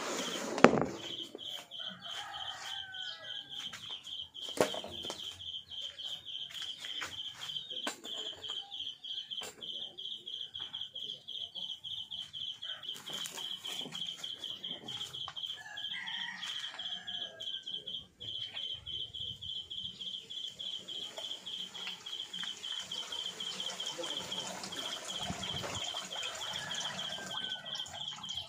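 Outdoor ambience: a high, rapidly pulsing insect trill runs steadily, with bird calls now and then. A sharp knock, the loudest sound, comes about a second in, and a smaller one a few seconds later.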